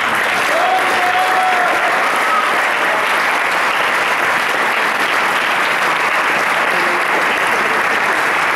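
Large audience applauding steadily, dense clapping that holds at an even level throughout. A single voice calls out briefly over it about a second in.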